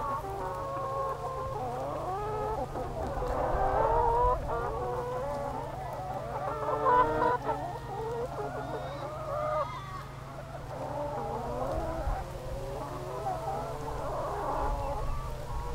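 A free-range flock of brown laying hens clucking and calling over one another, many overlapping calls at once, with a steady low rumble underneath.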